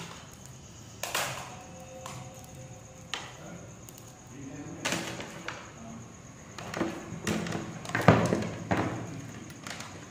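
Scattered knocks and clatter of wire and metal pliers being handled on a wooden bench, about seven separate knocks, the loudest a thump about eight seconds in. Faint voices in the background.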